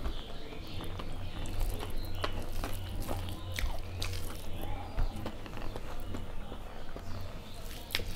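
Close-miked chewing with wet mouth clicks, and the squelch of rice, dal and matar paneer being mixed by hand on a steel plate.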